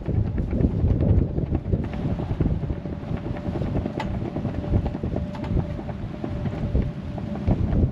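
Strong wind buffeting the microphone, with scattered small knocks and a faint steady tone that starts about two seconds in.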